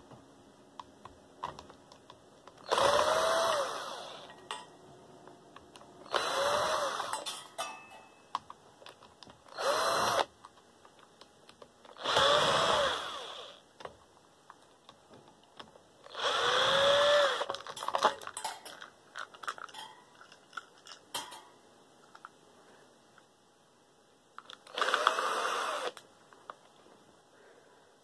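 Cordless drill driver backing out screws in six short runs, each spinning up and winding down, with small clicks between.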